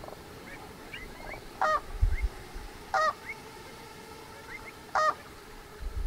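A large waterbird honking three times, short harsh calls about a second or two apart, with faint chirps of small birds in the background and a brief low thump about two seconds in.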